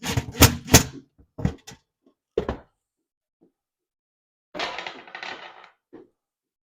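Sharp metallic clicks and knocks of a screwdriver with a magnetic bit working sheet metal screws into an oven's mounting plate, several in quick succession, then a rougher, noisier sound of about a second near the end and one more knock.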